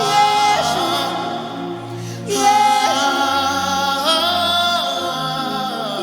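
Gospel worship music: a singer holds long wordless notes that glide between pitches, with a break a little after two seconds in, over sustained low chords that change a few times.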